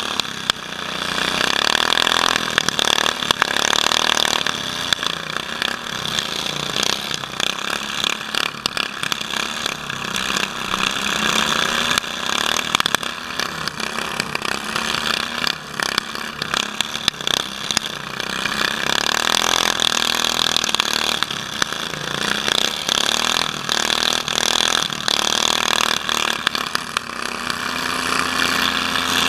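Riding lawn mower engines running, idling and revving, loud and close from the driver's helmet camera, with constant rattle.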